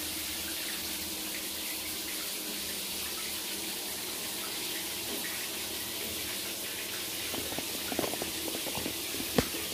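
Electric shower running, a steady spray of water onto a tiled floor while it heats up, with a few light knocks near the end.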